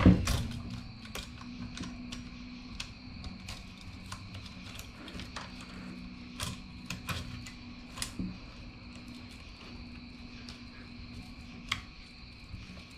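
Saw chain links clicking and rattling against the guide bar as the chain is worked onto a Husqvarna chainsaw bar by hand. A clatter right at the start, then scattered light clicks, over a steady background hum.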